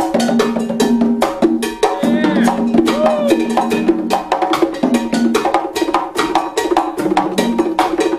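Latin big band music: rapid, steady strikes on timbales and cowbell over sustained horn and bass notes. A brief sliding high sound cuts in about two to three seconds in.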